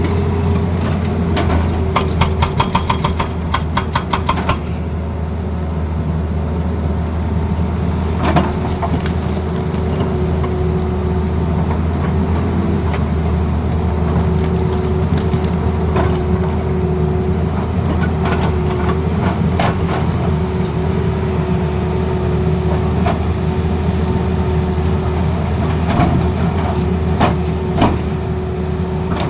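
Excavator diesel engine running steadily. About two seconds in there is a rapid run of sharp knocks, roughly seven or eight a second, lasting a couple of seconds. A few single knocks follow later.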